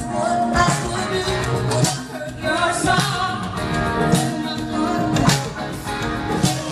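Band music with a singer, guitar and drums, played at a sound check.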